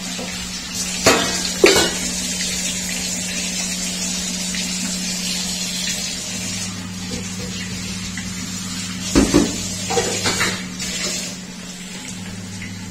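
Metal pots and kitchen utensils clattering: two knocks about a second in, then a cluster of clanks around nine to ten seconds in, over a steady low hum and hiss.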